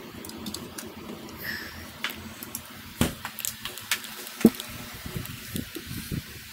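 A litre glass beer bottle being taken from a fridge shelf and carried to a table: a series of sharp knocks and clicks, the loudest about four and a half seconds in, as the bottle is set down.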